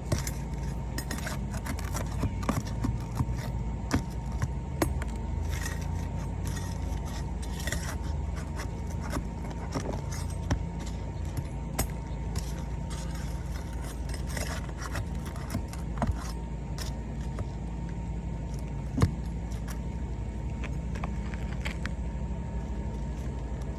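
Scattered clicks, taps and scrapes of hands and tools working on asphalt roof shingles, over a steady low rumble.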